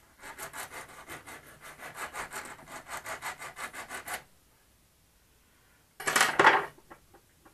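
Diamond file scraping back and forth on a thin metal rod end in quick strokes, about six a second, roughening the metal to clean off oxides before soldering; the filing stops about four seconds in. A short, louder clatter follows about two seconds later.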